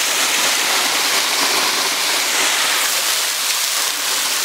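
Small waterfall pouring off a rock cliff and splattering onto wet rocks: a steady hiss of falling water.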